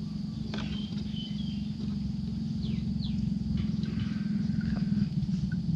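A steady low motor-like rumble that builds slightly, with a few short high chirps, some falling in pitch, over it.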